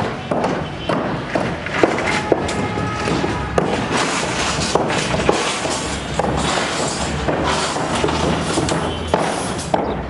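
Construction-site work noise: irregular knocks and clanks over a steady din, around a reinforcing-steel beam cage on timber formwork.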